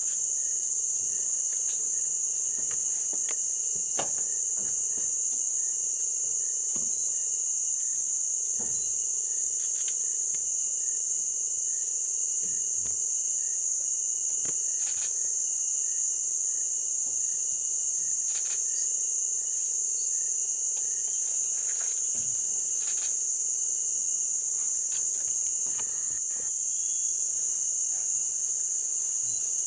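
Steady, high-pitched insect chorus droning without a break. A faint chirp repeats about twice a second during the first third, and a few faint clicks are scattered through.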